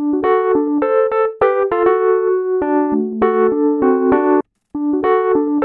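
Electric piano or keyboard playing a quick melody of short, separate notes, stopping briefly about four and a half seconds in before carrying on.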